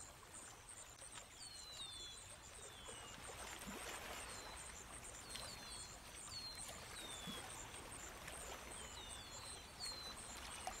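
Outdoor ambience of small birds giving short falling chirps every second or so over a steady, evenly pulsing high insect trill, with a soft rush like running water swelling around the middle.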